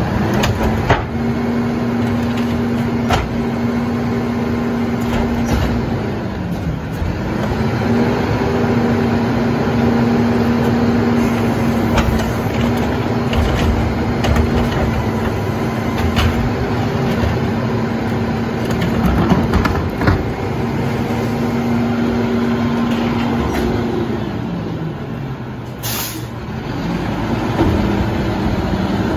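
Rear-loader garbage truck's engine running at a raised speed to drive its hydraulics. It drops back about six seconds in, speeds up again, and falls back near the end. Metal knocks and clanks come as a trash cart is tipped into the hopper, and there is a short hiss near the end.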